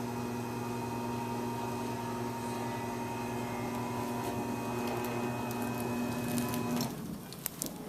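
A small electric motor hums steadily, then cuts off abruptly about seven seconds in, followed by a few light clicks.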